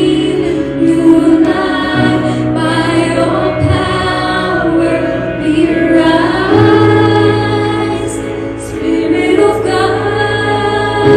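Background music: a slow song with female and choir-like vocals over sustained accompaniment.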